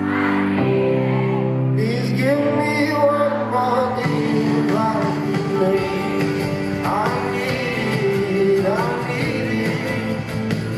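A live pop song: a male singer over a guitar-led band backing.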